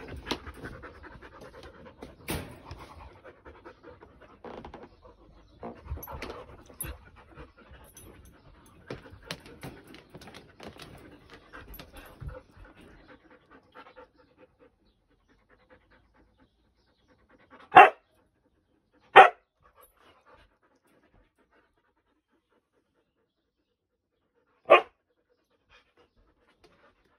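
Two huskies play-wrestling: panting and scuffling on carpet, dying away about halfway through, then three short, loud barks, two about a second and a half apart and a third some five seconds later.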